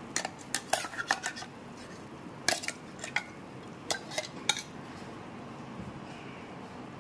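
Steel spoon clinking and scraping against a steel bowl as ground spice paste is scraped out into a clay pot of curry. The sharp metal clinks come in three clusters within the first five seconds, a few with a short ring.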